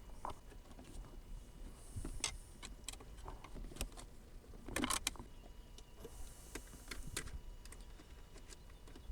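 Scattered light clicks, taps and short scrapes of a bolt and hand tool being worked into a car's plastic center console, with a brief cluster of sharper clicks about halfway through.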